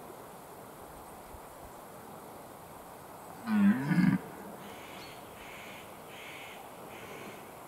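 Red deer stag giving one short, deep rutting roar, loud and lasting under a second, about halfway through.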